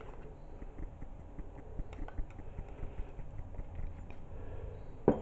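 Plastic spoon stirring a thick wet paste in a plate: faint scraping with scattered light clicks against the plate, and one sharper click near the end, over a low steady hum.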